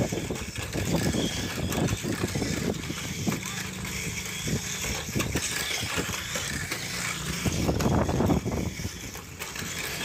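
Tamiya Mini 4WD cars running on a plastic track: small electric motors whirring, with frequent clattering knocks as the cars hit the track's plastic walls and joints.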